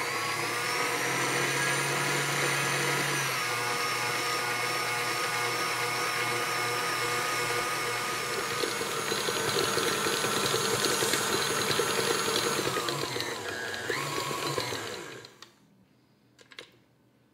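Tilt-head stand mixer with a flat beater mixing a sticky honey gingerbread dough: the motor spins up into a steady whine, drops in pitch a few seconds in, then winds down and stops about fifteen seconds in, followed by a few clicks.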